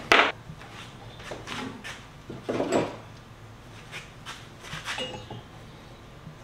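Steel plate and hand tools being handled at a workbench: a sharp metal clank right at the start, then scattered lighter knocks and rattles as the plate sits in a bench vise and a tap wrench is picked up.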